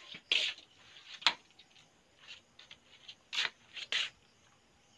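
A handful of short rubbing scrapes. The loudest is a sharp click a little over a second in.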